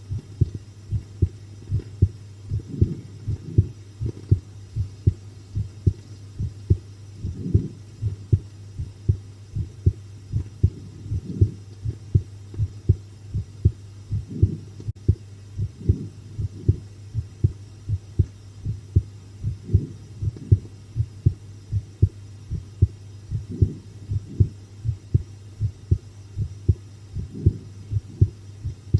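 Human heartbeat, a steady quick run of soft low thumps, with a constant low hum underneath.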